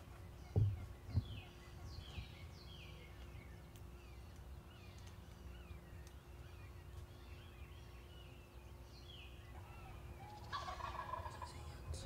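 Osceola wild turkey gobbler gobbling from the roost near the end, a loud rattling gobble. Songbirds sing short falling chirps throughout the predawn chorus, and two dull thumps come about half a second and a second in.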